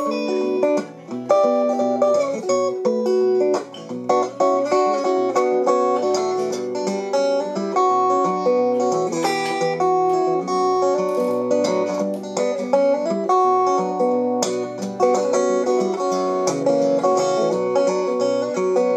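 Acoustic guitar played solo: an instrumental break of picked notes and chords, with no singing.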